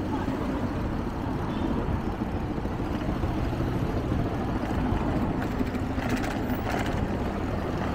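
Steady low rumble of road traffic and wind heard from a moving bicycle, with faint runs of fine ticking about five and six seconds in.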